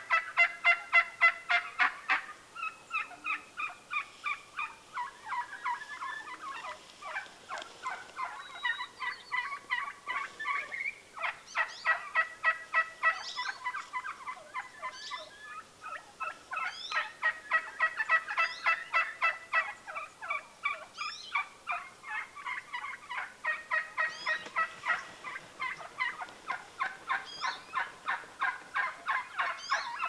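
A flock of wild turkeys calling without a break: a fast string of rough, pulsed notes, several a second, with higher rising notes breaking through here and there.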